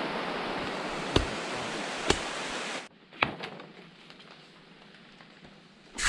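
Digging at a burrow in forest soil: a few sharp knocks from a cutlass and hands working the earth over a steady rushing hiss. The hiss cuts out abruptly about halfway, leaving quieter faint ticks, and loud scraping and rustling of the digging starts near the end.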